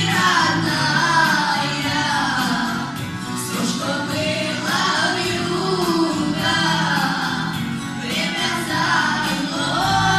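A boy singing a Gypsy song over a musical accompaniment, the sung melody rising and falling in long phrases.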